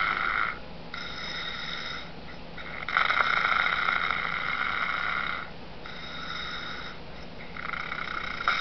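A sleeping man snoring, heard over a Skype call. There is a louder snoring breath about every four and a half seconds, with quieter breaths in between.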